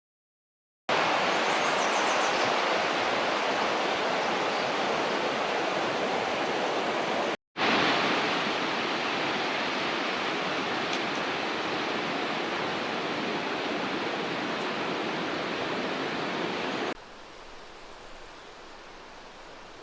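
Fast river water rushing, a steady, even noise with no rhythm. It starts about a second in, breaks off briefly at about seven and a half seconds, and drops to a much quieter level near the end.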